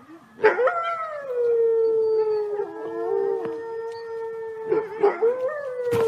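Two small dogs howling together in long, held notes. A second voice joins a couple of seconds in, and a fresh rising howl starts near the end.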